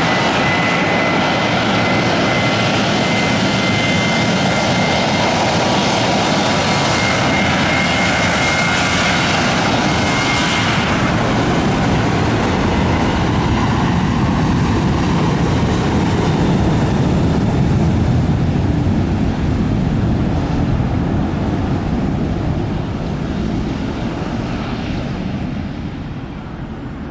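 Boeing 737-800 with two CFM56-7B turbofan engines at takeoff thrust: a loud jet noise with a steady high whine that fades after about ten seconds, giving way to a deeper rumble that dies away near the end as the jet departs.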